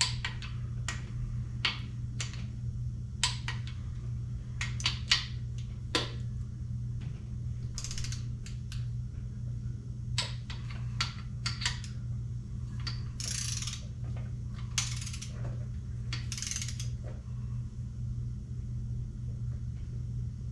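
Craftsman click-type torque wrench ratcheting and clicking over and over as the small-block Chevy's main cap bolts are run down and torqued to 30 lb-ft, the first of three torque passes. A steady low hum runs underneath.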